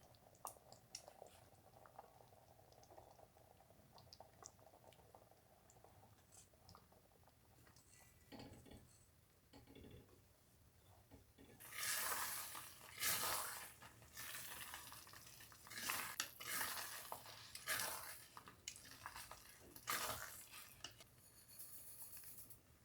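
Kitchen utensils and cookware knocking and scraping: faint scattered clicks at first, then about halfway through a run of louder scraping strokes.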